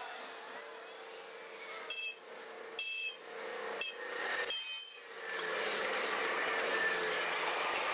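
Sped-up recording of a BNSF freight train: the locomotive horn, pitched very high by the speed-up, sounds four brief blasts (the third shortest, the last longest), the long-long-short-long grade-crossing signal. About five seconds in, the steady rush of the locomotives and cars passing close by takes over and is louder.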